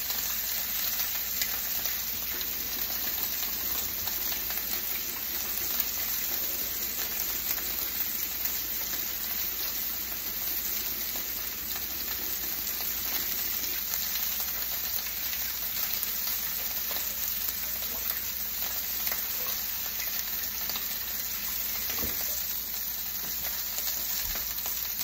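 A steak frying in an overheated frying pan with cooking oil smoking past its smoke point: a steady, unbroken sizzle.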